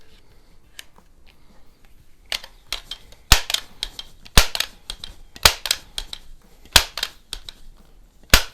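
Crosman 147 multi-pump air rifle being pumped: a run of sharp mechanical clacks, five loud ones about a second apart with smaller clicks between, as the pump lever is worked stroke after stroke to build pressure.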